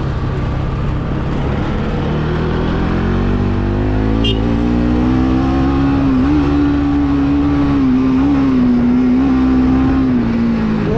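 Single-cylinder motorcycle engine under way on a gravel road, its revs climbing over the first few seconds and then holding steady with a few small dips, over a steady rush of tyre and wind noise.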